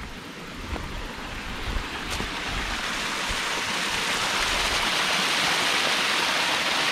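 Small mountain stream rushing over rocks. The rush grows steadily louder over the first few seconds, then holds steady.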